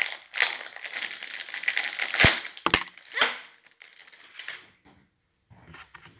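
Foil blind-bag packet crinkling and tearing as it is pulled open by hand, with two sharp knocks a little past two seconds in. The handling noise dies down after about four and a half seconds, leaving only faint rustles.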